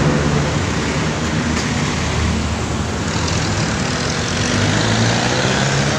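Busy road traffic: the engines of passing cars, motorcycles and jeepneys running in a steady mix.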